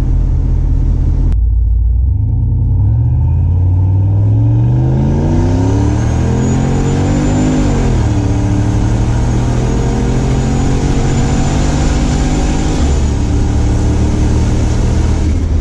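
Turbocharged LS V8 in a Chevrolet C10 pulling hard under acceleration, heard from inside the cab with the windows down. The engine note climbs for several seconds and drops sharply at an upshift about halfway through, then pulls again. A high turbo whistle rises over it until the throttle comes off near the end.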